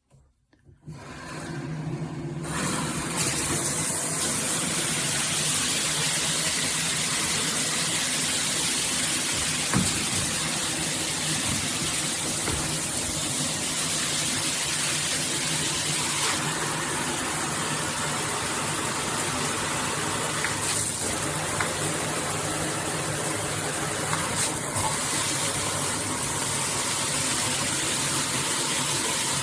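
Shower head spraying water at a steady full flow. The spray starts about a second in and builds to full strength within a couple of seconds.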